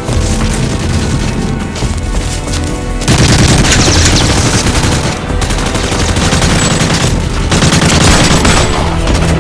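Rapid gunfire, many shots close together, over background music. It gets louder about three seconds in.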